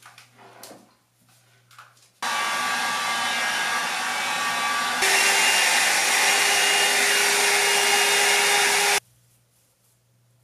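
Hot-air styling brush switched on about two seconds in and blowing steadily; about halfway through it steps up to a louder setting with a steady hum, then switches off shortly before the end. A few light handling clicks come before it starts.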